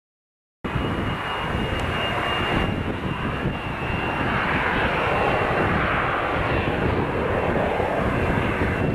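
Piston engines and propellers of Socata TB-30 Epsilon aerobatic trainers flying in formation, a steady drone that swells in the middle as the planes pass. The sound cuts out briefly at the very start.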